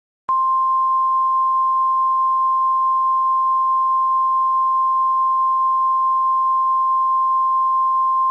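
NOAA Weather Radio's 1050 Hz warning alarm tone: a single steady high-pitched tone that starts a moment in and holds without change. Here it is sounded as the weekly test of the alarm signal that switches on specially built weather alert receivers.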